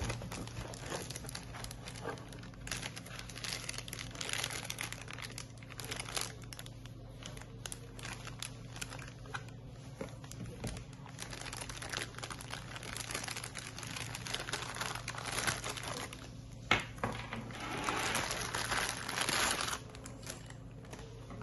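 Clear plastic packaging bag crinkling and cardboard box flaps rustling as a bullet CCTV camera is unpacked by hand, in irregular bursts with small clicks, and a longer, louder stretch of crinkling near the end as the bag comes off.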